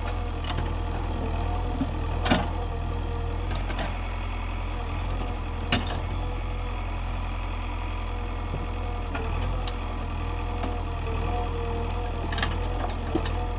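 JCB backhoe loader's diesel engine running steadily as its backhoe arm works. Two sharp knocks come about two and six seconds in, with a few lighter clicks near the end.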